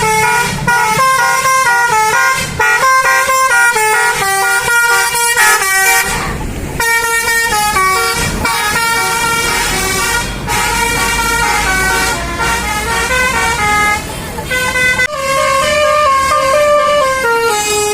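Bus basuri 'telolet' horn, a multi-trumpet musical air horn, playing fast melodies: loud held notes stepping up and down several times a second, with short breaks about six seconds in and again near fourteen seconds.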